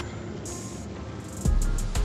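Background music with steady sustained tones; a low rumble comes in about one and a half seconds in.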